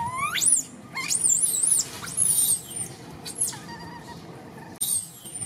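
Baby long-tailed macaque crying in distress. It gives a run of shrill, very high-pitched calls: one sweeps steeply upward at the start, a warbling, wavering scream follows about a second in, and shorter cries come near the end.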